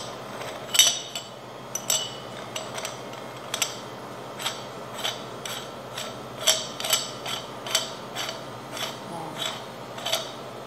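Metal parts of a Panasonic MK-G1500P meat grinder's head clinking and scraping as they are fitted together by hand: a run of irregular sharp metallic clicks with a short ring, about two a second.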